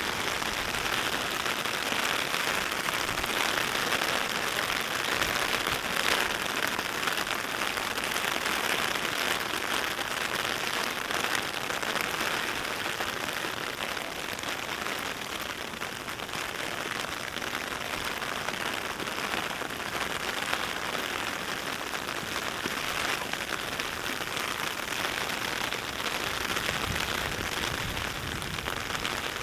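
Heavy rain falling steadily: a dense, even hiss of raindrops with many fine patters, recorded binaurally.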